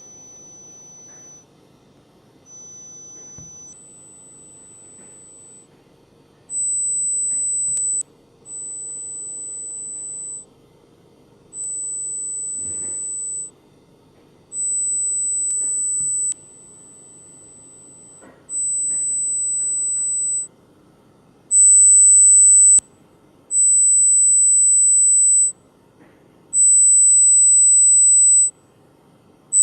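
Pure-tone hearing-test beeps from a mobile audiometry app: two short beeps of a very high tone, then a slightly higher tone about 4 s in, beeped about nine times for a second or two each. The loudness steps up and down from beep to beep and is loudest near the end, as the test searches for the hearing threshold at the high frequencies. A few faint ticks fall between some beeps.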